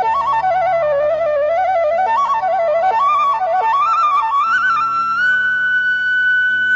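Background music: a flute plays a quick, ornamented melody over a low steady drone, then settles on one long held high note about five seconds in.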